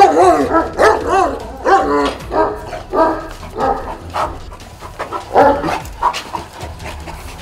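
Turkmen alabays barking repeatedly, about two barks a second at first, then fewer and quieter, with one more loud run of barks a little past halfway.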